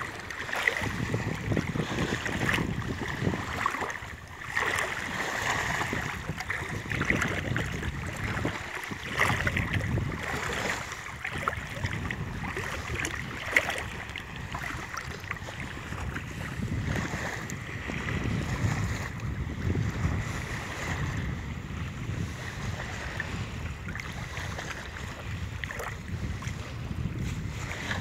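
Wind buffeting the microphone over water sloshing and splashing around someone wading waist-deep through choppy shallow sea water.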